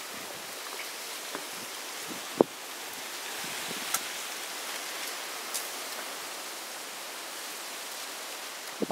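Steady outdoor hiss with scattered light clicks and knocks from footsteps along a dirt trail, one sharp click about two and a half seconds in.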